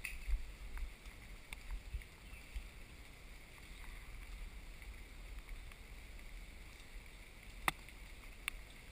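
Slow footsteps on a muddy trail slope: faint low thuds, with two sharp clicks near the end.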